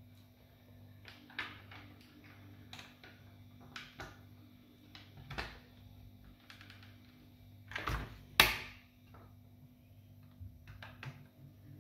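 Plastic parts of a Nerf Rival Roundhouse blaster being pushed and fitted back together by hand during reassembly: scattered light clicks and knocks, with two louder snaps close together about eight seconds in. A faint steady low hum runs underneath.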